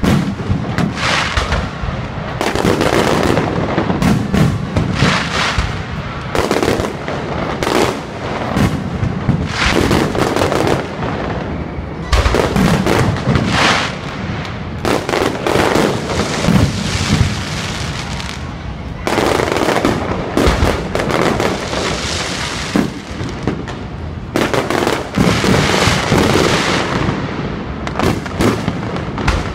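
Fireworks display: aerial shells bursting one after another in rapid, dense volleys of loud bangs.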